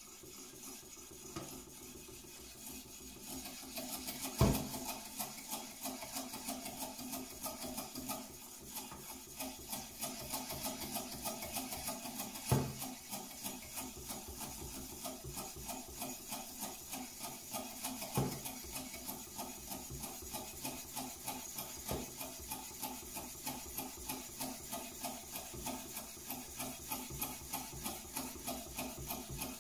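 Knife blade stroked back and forth on a wet Naniwa Chosera whetstone in a TSProf guided sharpening system, a rasping stroke about twice a second. A few sharp clunks stand out among the strokes.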